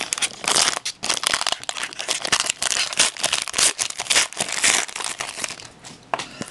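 Foil wrapper of a hockey trading-card pack crinkling and tearing as the pack is opened by hand, in a dense run of irregular crackles that thins out near the end.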